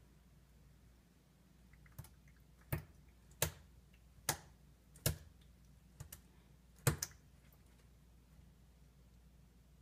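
A series of about nine sharp clicks, roughly one a second and irregularly spaced, with two quick double clicks near the end; the loudest comes about seven seconds in.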